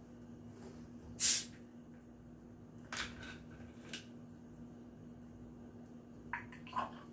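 A short, sharp hiss about a second in, then a few light clicks and taps: a bottle of carbonated sparkling water being opened and handled.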